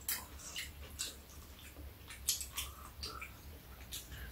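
Quiet eating sounds: irregular chewing and mouth smacks, a few a second, mixed with light clicks of chopsticks and a spoon against bowls and a container.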